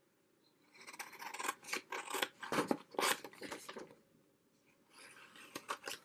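Scissors snipping through pink paper along a traced outline: a quick run of short cuts for about three seconds, a brief pause, then a few softer snips near the end.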